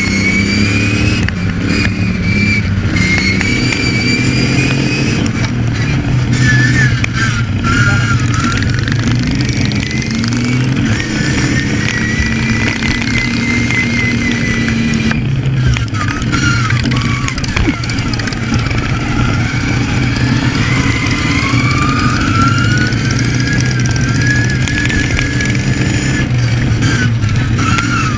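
Racing ride-on lawn mower engine running hard at high revs, heard from on board, with a high whine that rises and falls over and over as the mower speeds up and slows.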